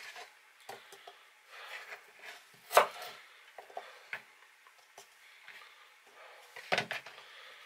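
A knife cutting onion on a plastic chopping board, and onion chunks knocking into the plastic bowl of a small electric food chopper. Scattered taps and knocks, the sharpest nearly three seconds in and a quick run of them near the end.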